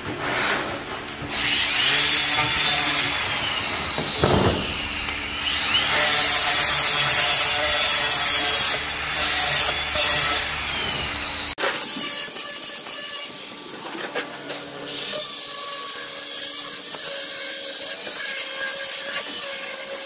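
Angle grinder with a flap sanding disc running against the cut edges of stainless steel welded wire mesh, grinding off the sharp ends. The whine and grinding hiss swell and dip as the disc is pressed on and eased off. About halfway through the sound changes abruptly and goes on a little quieter.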